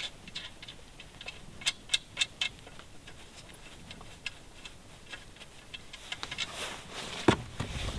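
Irregular sharp clicks and taps of small metal fittings being handled as an eyelet and wing nut are fitted on a camper's rooftop tent frame, with a cluster of clicks about two seconds in and a few more spread after.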